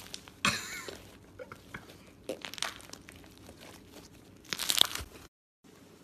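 Hands squeezing and stretching a stretchy, foamy shaving-cream slime, making crackling, crinkling squelches in three bursts, the last the loudest. The sound then cuts out for a moment.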